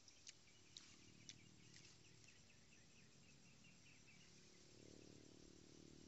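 Near silence: faint outdoor ambience with insects chirping in a broken high trill during the first half, three soft clicks in the first second and a half, and a low rumble of handling noise later on.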